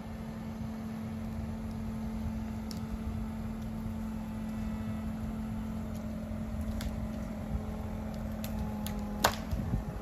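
Compact excavator running with a low rumble and a steady hum as its arm works up in the trees. There are a few faint clicks, then a single sharp crack about nine seconds in, when the hum stops.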